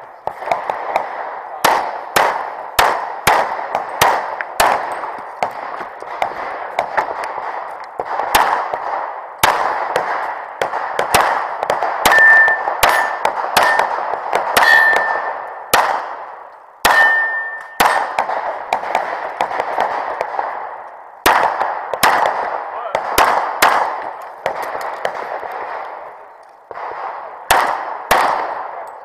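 Rapid pistol fire in pairs and short strings, each shot echoing, as the shooter moves through a course of targets. Between about 12 and 17 seconds, hit steel plates ring with short, clear tones.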